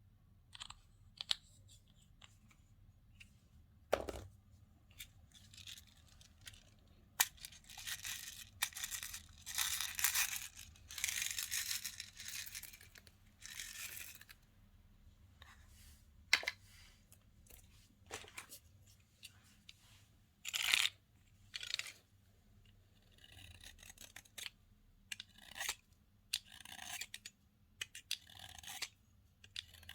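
Slime being squished and stretched by hand: irregular sticky crackles, pops and clicks, with a longer run of crackling from about a third of the way in.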